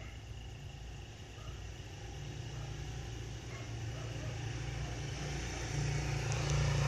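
Low, steady engine rumble from a nearby motor vehicle, growing louder over the last second or so.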